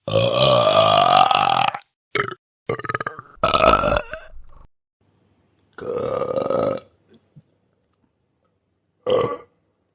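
A person burping: one long burp rising in pitch, then about five shorter burps with silent gaps between them.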